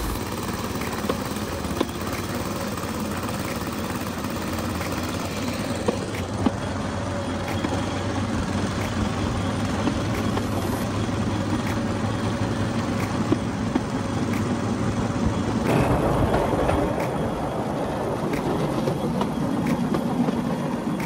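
Bamboo train riding along the rails: its small petrol engine runs steadily under a rush of wind noise, with occasional sharp clacks from the wheels on the track. The sound grows louder and rougher for the last few seconds.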